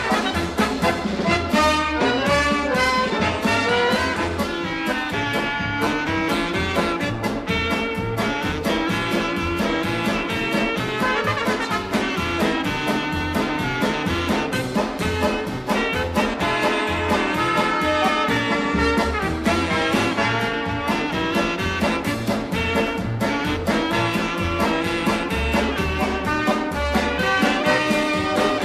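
Upbeat swing-style background music with brass and a steady bouncing beat.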